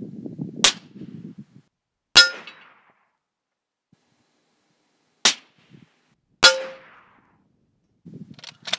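Suppressed rifle fire at long range, in two pairs: each sharp report is followed about a second and a half later by a louder, ringing metallic clang, the bullet striking a steel target. Softer clicks and handling noise come near the end.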